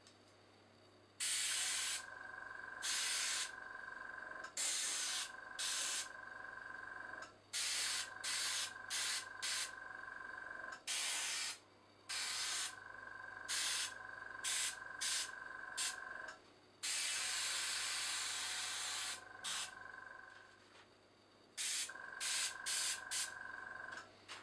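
Dual-action airbrush spraying black acrylic paint in many short bursts of hiss, with one longer burst about three-quarters of the way through. Under it runs the steady whine of a small tankless compressor, which drops out briefly a few times.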